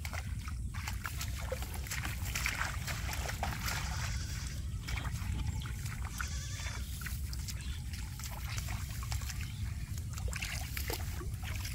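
Splashing and sloshing of hands and feet in shallow paddy water among rice plants as fish are groped for by hand, over a steady low rumble. A short high-pitched cry comes near the middle.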